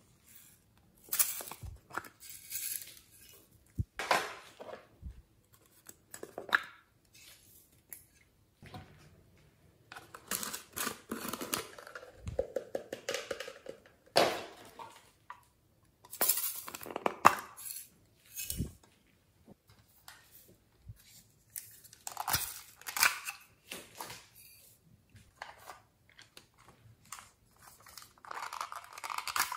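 Plastic toy containers being handled and opened, with clicks, knocks and scrapes against a glass bowl; short irregular clusters of clinks and rustles separated by quiet gaps.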